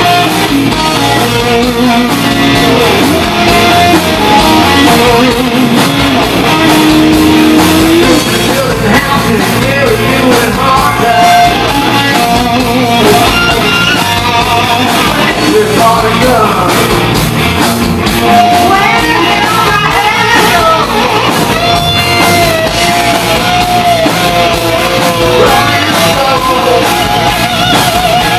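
Live rock band playing loud: electric guitar, bass guitar and drums, with a male lead singer singing and shouting over them.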